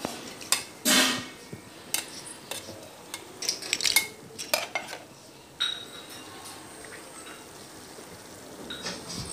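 A spoon stirring mutton soup with potato and tomato in an aluminium pressure cooker pot, knocking and scraping against the pot's sides, with the soup boiling underneath. The knocks come thickest in the first half and thin out after.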